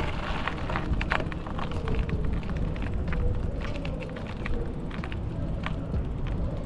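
Mountain bike being ridden, heard from a rider-worn microphone: a steady low rumble of wind and tyre noise with scattered light clicks and rattles from the bike.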